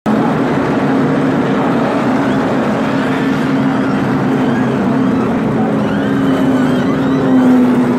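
NASCAR stock cars' V8 engines running as a line of cars circulates past under caution, a steady drone that swells slightly near the end.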